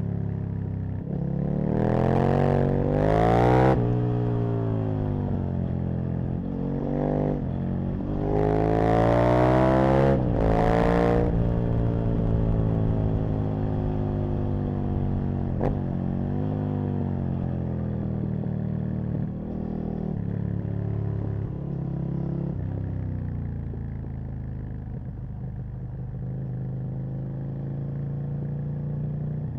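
Aprilia RSV Mille's 998 cc V-twin engine on the move, pulling hard twice with a rising pitch, about two seconds in and again around eight seconds in. It then settles into a steadier note that slowly falls as the rider eases off.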